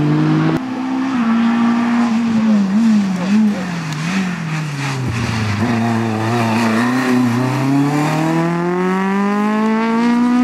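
Rally car engines revving hard on a stage, cut from one car to the next about half a second in. The engine pitch wavers up and down with throttle lifts and gear changes, drops low, then climbs steadily under full acceleration through the last few seconds.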